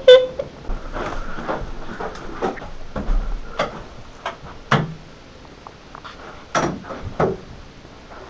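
Irregular knocks and clicks of a person moving about and handling a wooden interior door, a few of them louder than the rest.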